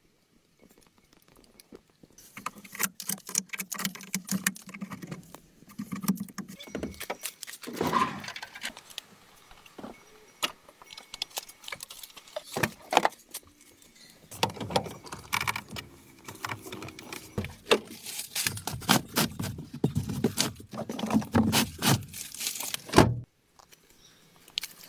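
Irregular clinking, knocking and rattling of objects being handled, starting about two seconds in and cutting off suddenly near the end.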